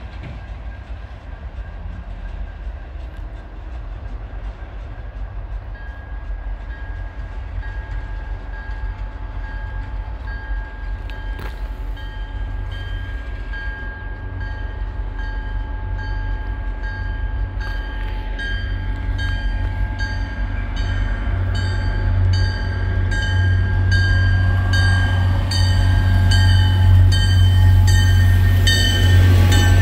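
Diesel locomotive approaching, its deep engine rumble growing steadily louder, with its bell ringing at an even pace a bit more than once a second through the second half.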